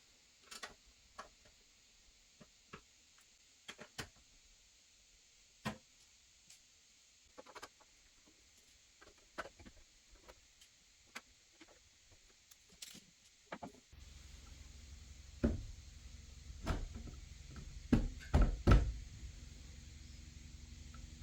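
Scattered small clicks, taps and knocks of PC hardware and cooler parts being handled. About two-thirds of the way through, a steady low hum starts, and several louder thumps follow.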